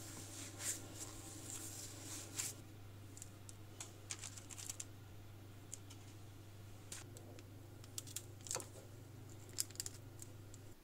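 Scattered light clicks and taps of hands working marzipan cookie dough and a small metal cookie cutter, over a low steady hum that cuts off at the end.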